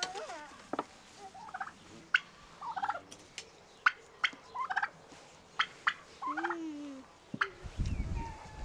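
A domestic turkey gobbling in several short rattling bursts, over sharp clicks of metal spoons against bowls. A low rumble comes in near the end.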